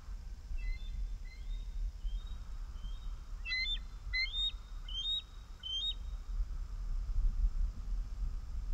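Bald eagles calling: a few faint high notes, then a run of about five sharp, high-pitched piping chirps, roughly two a second, over a steady low rumble.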